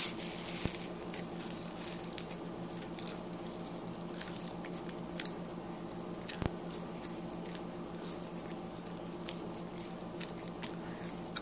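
Faint chewing and mouth clicks from someone eating strands of edible Easter grass, which she calls dry and chewy. One sharper click comes about six and a half seconds in.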